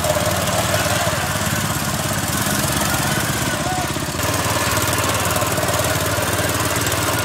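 Small engine of a motorized wheelbarrow running steadily while the barrow carries a load of oil palm fruit bunches, dipping briefly and then running a little louder about four seconds in.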